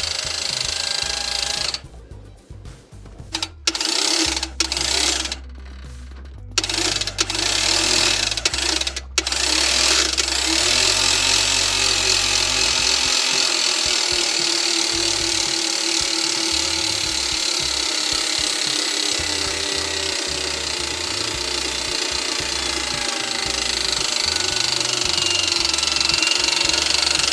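Electric boat winch, driven by a Toyota starter motor, whirring as it winds its cable under load. It stops and restarts twice in short bursts in the first few seconds, then runs steadily.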